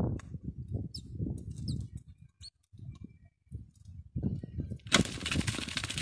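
A great tit on a spring-loaded net bird trap: soft low thumps and a few short high chirps, then about five seconds in the trap springs with a sudden snap and the caught bird flutters its wings hard against the netting in a dense, rustling flutter.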